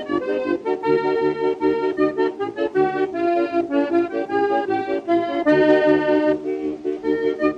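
Instrumental background music: a melody over held chords and a steady rhythmic bass pulse.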